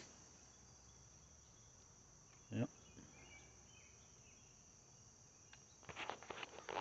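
Faint, steady, high-pitched insect drone, with a brief voice about two and a half seconds in and a few clicks near the end.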